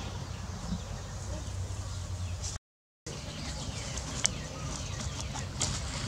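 Steady low outdoor rumble with a few short, sharp clicks in the second half; the sound drops out completely for about half a second just before the middle.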